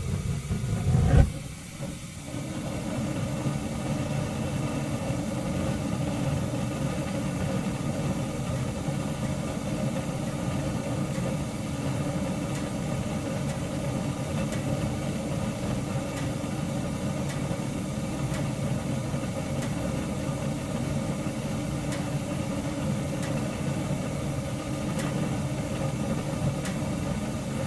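Gas heater burner lighting with a loud burst about a second in, then burning with a steady, rough rumble.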